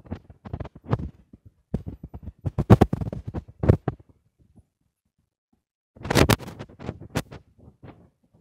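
Handling noise on a phone microphone: irregular scratching, rubbing and knocking in two main clusters, with a dead-silent gap of a second or so between them.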